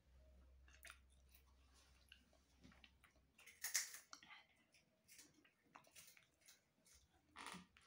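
Faint eating sounds: chewing, and small clicks of fingers and food against a plate. There is a sharper click a little under four seconds in and another near the end.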